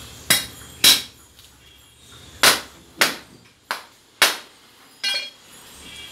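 Heavy butcher's cleaver chopping a goat head on a wooden log chopping block: about seven sharp, unevenly spaced blows, the last one near the end with a brief metallic ring.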